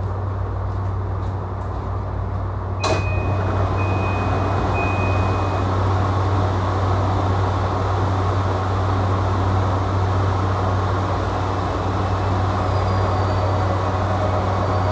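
Steady low hum of a stopped E235-series train. About three seconds in comes a sharp clack, then three short high beeps of the door chime as the doors open, and the background grows a little louder afterwards.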